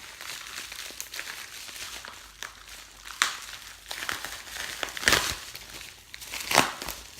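Shipping package being opened by hand: packaging crinkling and rustling, with three louder sharp rips or crunches about three, five and six and a half seconds in.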